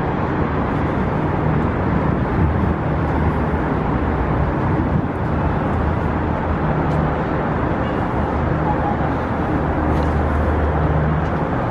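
Steady road traffic noise, a constant rush of passing vehicles with a low engine hum that swells and fades.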